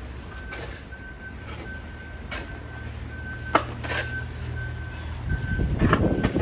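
Electronic warning beeper sounding one steady pitch, about two short beeps a second, over a low engine rumble, with a few sharp knocks. Near the end, wind starts buffeting the microphone.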